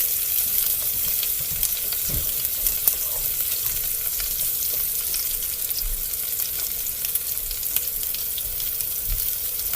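Oil sizzling and crackling steadily in a skillet as dumplings pan-fry.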